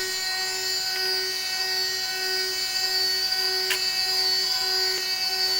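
Spindle of a DIY CNC milling machine running with a steady high-pitched whine while cutting aluminium, a lower tone pulsing under it about one and a half times a second. A short click about three and a half seconds in.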